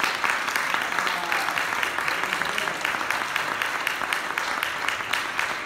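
Congregation applauding: many hands clapping together in a steady, dense patter.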